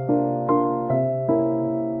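Background keyboard music: sustained piano-like chords, with new notes struck about every 0.4 seconds.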